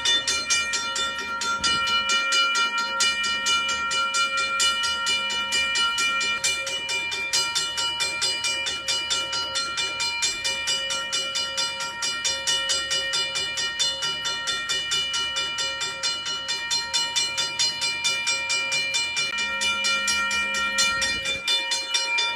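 Safetran mechanical railway level-crossing bell ringing continuously, its gong struck in rapid repeated strokes with a sustained metallic ring, as a crossing warning bell in operation.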